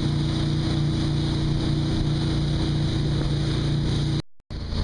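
Motorboat engine running steadily under way while towing a wakeboarder, a constant low drone over the rush of wind and water. The sound drops out briefly near the end.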